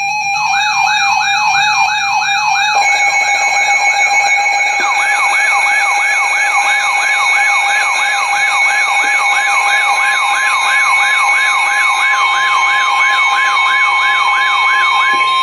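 Emergency alert alarm: a siren wailing rapidly up and down, about three sweeps a second, over several steady alarm tones. It starts abruptly and grows fuller about three seconds in.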